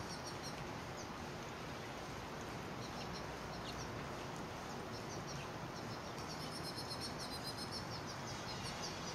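Birdbath fountain bubbling steadily, with high, rapid twittering bird calls near the start and again about seven seconds in.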